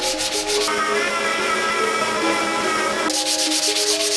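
Rhythmic rasping strokes of sanding on a car's bare body panels, dropping back for about two seconds in the middle and returning about three seconds in. Background music with a melody plays throughout.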